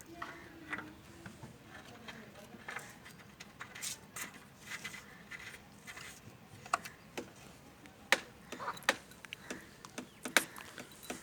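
Irregular sharp clicks and knocks of hard objects being handled, the loudest three coming late.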